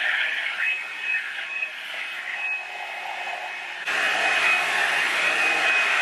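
Revlon One-Step hot-air brush dryer running: a steady rush of air with a thin high whine over it. It drops quieter for a few seconds, then comes back louder all at once about four seconds in.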